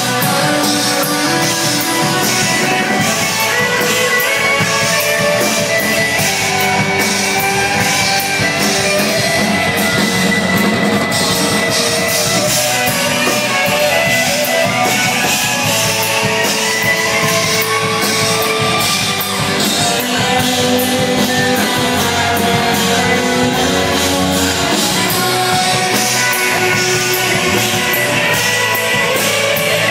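Rock band playing live, with guitar and drum kit, cymbal hits coming thick and fast over sustained guitar notes.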